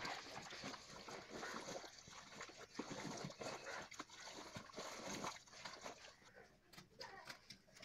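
Wet grey cement mix being stirred with a wooden stick in a large metal pot: irregular sloshing and scraping with short knocks of the stick against the pot.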